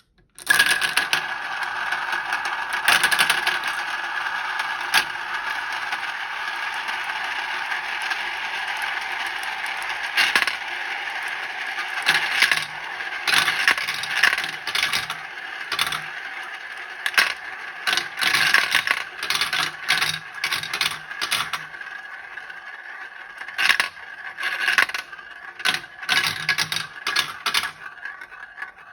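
Many pearl beads rolling and clattering down a xylophone marble run, clicking against the track and striking its bars. The rolling is dense and continuous at first, then thins out into separate clicks and clatters as fewer beads remain.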